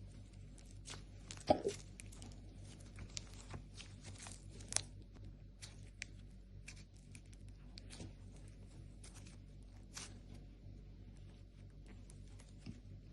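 Slime being squished and stretched by hand, giving scattered small crackling pops and clicks, with one louder pop about one and a half seconds in.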